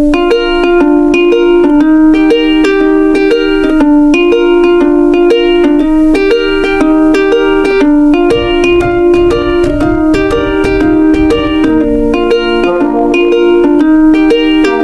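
Instrumental background music: a plucked-string tune playing a steady, repeating pattern of notes.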